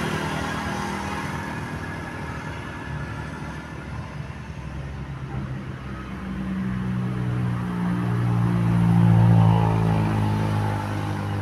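A large bus, its low engine drone building from about six seconds in, loudest near nine seconds, then fading as it passes.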